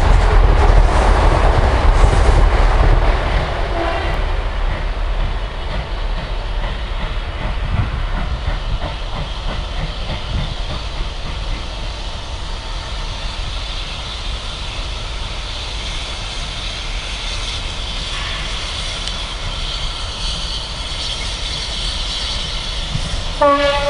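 A train running past on the track, its wheels clattering over the rail joints in a steady rumble that is loudest at first and eases after a few seconds. A horn begins to sound right at the end.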